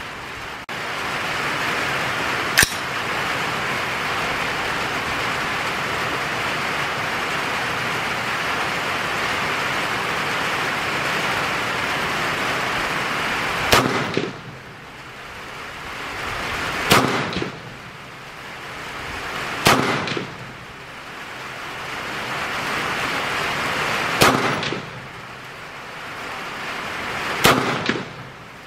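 Five shots from a .350 Legend AR-style rifle firing 200-grain jacketed soft points, coming about three to four seconds apart through the second half, over a steady hiss of rain that dips after each shot and slowly comes back. A single sharp snap is heard about three seconds in.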